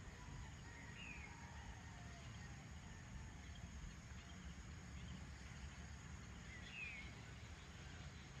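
Faint outdoor night ambience: a low steady rumble with two short chirping calls, falling slightly in pitch, about six seconds apart.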